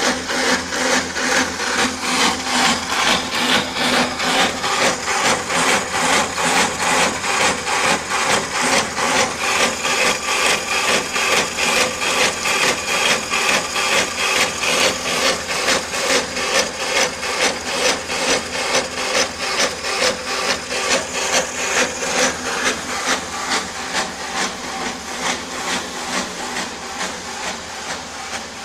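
Portable boring machine cutting metal: a steady grinding, scraping noise that pulses evenly about twice a second, easing a little near the end.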